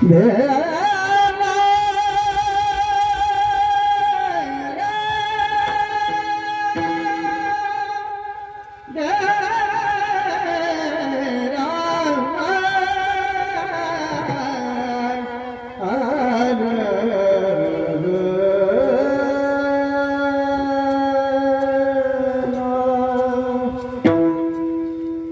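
A male voice singing long, high held notes with a wavering vibrato, phrases gliding up and down, in Marathi devotional singing over instrumental accompaniment. The singing breaks briefly twice, about a third and two thirds of the way through.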